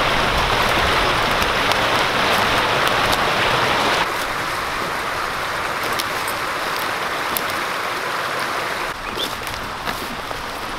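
Shallow creek babbling over rocks, a steady rushing of water. It drops in level about four seconds in, and again near the end.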